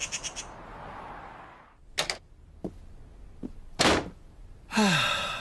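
Cartoon sound effects: a magpie's rattling chatter cut off in the first half second, then a hiss fading away, a few sharp knocks and a louder thunk, and a sigh falling in pitch near the end.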